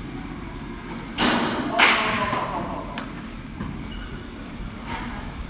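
Thud of a thrown ball striking, about a second in, followed half a second later by a second, louder hit that fades over a moment; a couple of light taps later.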